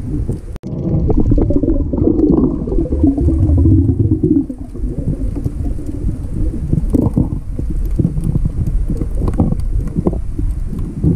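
Muffled underwater sound through a camera housing: a steady low rumble of moving water with scattered knocks and scrapes as the spear and line are handled.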